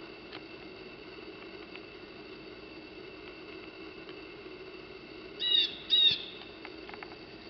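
Pileated woodpecker giving two short, loud, harsh calls about half a second apart, over a steady faint background hum, warning a blue jay away from a suet log.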